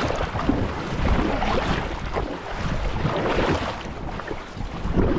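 Wind buffeting the microphone over water washing and splashing around a sit-on-top kayak at sea.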